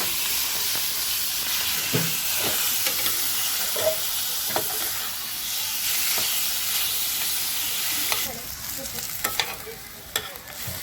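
Pork slices frying in hot oil in a non-stick pan, a loud, steady sizzle with scattered clicks and scrapes of stirring. About eight seconds in the sizzle drops sharply to a quieter fry, and the stirring clicks come more often.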